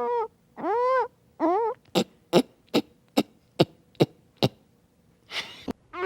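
A person humming with closed lips in three short hums that slide up and down in pitch, then about seven sharp tongue clicks, a little over two a second, and a short breathy hiss near the end.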